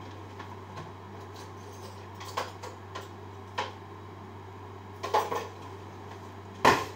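Metal kitchen utensils clinking against dishes and pots, a few separate clinks with the loudest clatter near the end, over a steady low hum.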